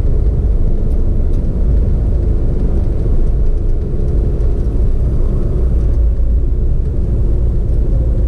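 Steady engine and road rumble of a motor vehicle being driven, with a low, even hum.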